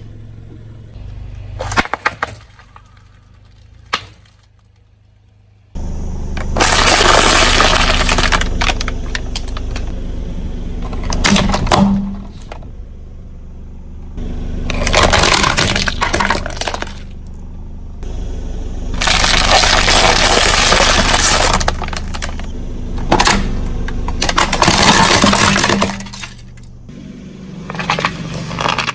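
Car tyres rolling over and crushing brittle objects: several spells of crackling and crunching, each a few seconds long, with quieter gaps between them.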